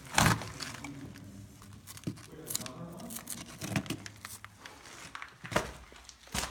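Irregular crunches, scrapes and knocks of someone scrambling over loose rock and rubble inside an abandoned mine tunnel, close to the phone recording it. About half a dozen sharp strokes, the loudest just after the start and again near the end.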